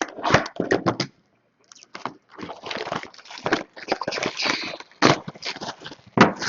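Plastic shrink-wrap crinkling and tearing in irregular bursts as a sealed trading-card box is unwrapped and opened.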